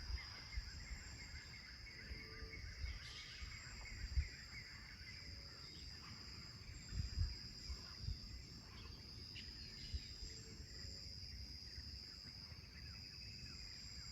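Faint outdoor nature ambience: a steady high-pitched insect drone with scattered bird chirps, over irregular low thumps on the microphone, the loudest about four and seven seconds in.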